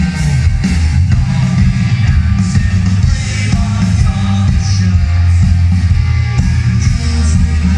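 Live rock band playing loud through a large stage PA, heard from within the crowd: a heavy, bass-dominated mix of electric guitars and drums.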